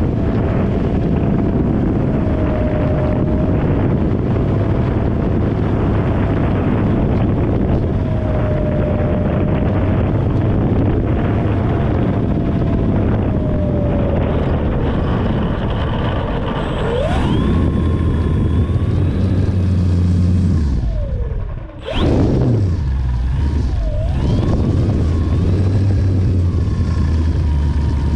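Radio-control model airplane's engine and propeller running, picked up by a camera on the plane and mixed with heavy wind rush in flight. A little past halfway the plane is down on the grass with the engine at low throttle. About three-quarters through, the engine's pitch dips and then sweeps sharply back up once.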